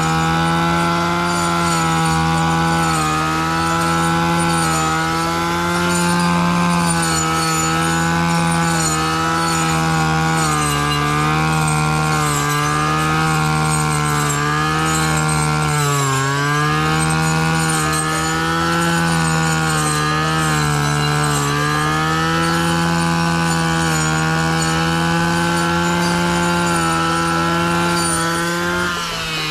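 Engine-powered brush cutter with a new tip-saw blade, running at high speed while cutting tall grass and reeds. Its engine pitch wavers and dips now and then as the blade takes in stems, most sharply about halfway through and again near the end.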